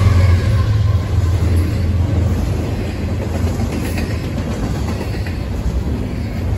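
Double-stack intermodal freight cars rolling past close by: a steady wheel-on-rail rumble with light clatter. The low drone of the lead locomotives' diesel engines dies away within the first second as they pull clear.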